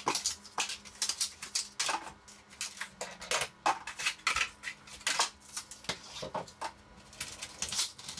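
Zip ties being snipped and cardboard protectors handled on a bicycle frame: an irregular run of short, sharp clicks and snaps.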